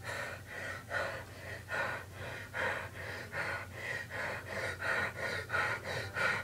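A man hyperventilating: rapid, forceful breaths in an even rhythm, about two or three a second. This is the deliberate over-breathing that leads up to a pass-out trick.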